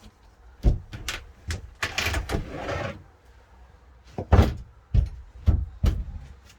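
A series of about eight sharp knocks and thuds, irregularly spaced, with a short scraping rustle about two seconds in.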